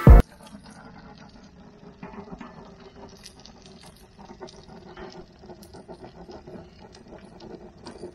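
Barbecue grill fire crackling, with many small scattered pops over a faint steady low hum. The intro music cuts off with a loud burst in the first moment.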